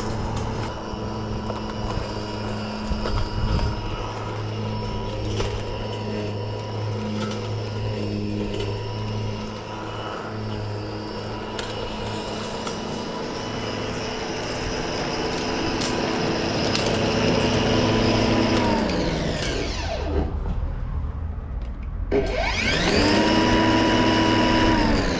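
Ozito 18V brushless cordless lawn mower's electric motor and blade running steadily while mowing grass. About nineteen seconds in the motor winds down to a stop with a falling whine, then about three seconds later spins up again with a rising whine to full speed.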